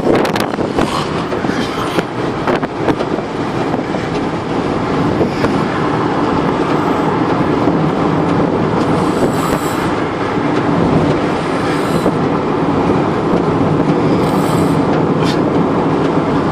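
A vehicle's engine rumbling loud and rough while travelling: a steady drone mixed with road noise.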